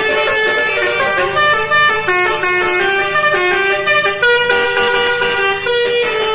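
Telolet horns, the multi-note musical air horns of Indonesian buses and trucks, playing a melody of held notes that step up and down in pitch every half second or so. A higher note joins about four seconds in.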